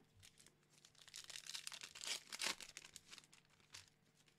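Foil Pokémon booster pack wrapper crinkling and crackling as it is picked up and handled, busiest and loudest around the middle.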